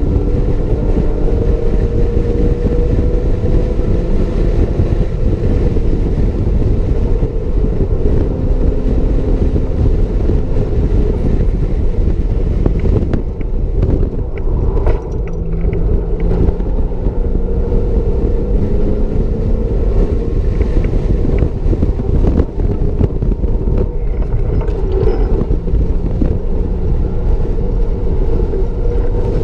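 2007 Porsche Cayman S's 3.4-litre flat-six heard from inside the cabin at track speed, its pitch climbing and dropping again and again through the gear changes over a loud rush of road and wind noise, with a short dip in loudness about halfway through.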